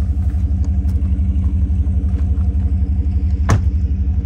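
Off-road vehicle driving slowly over a rocky dirt track, the engine and tyres making a steady low rumble heard from inside the cabin. One sharp knock about three and a half seconds in.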